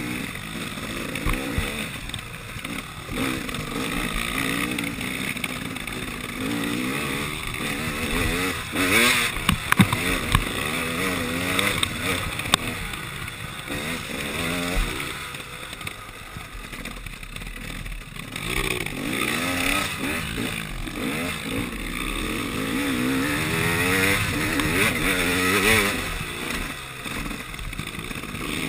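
KTM 300 XC two-stroke dirt bike engine revving up and down as it rides a slippery trail, with a couple of sharp knocks partway through.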